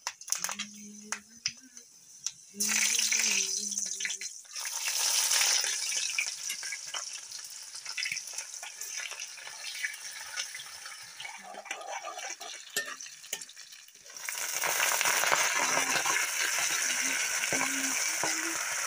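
Hot oil sizzling in a small metal kadai as ingredients go in and are stirred. About 14 seconds in the sizzle jumps to a loud, dense hiss as a batch of fresh mustard greens hits the oil.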